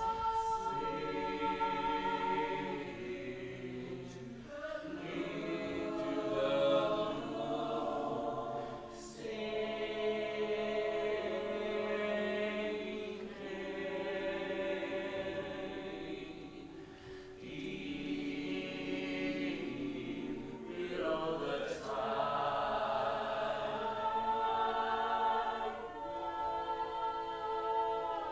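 Choir singing a cappella in long held chords, the harmony shifting every few seconds, with a sliding pitch change about three-quarters of the way through.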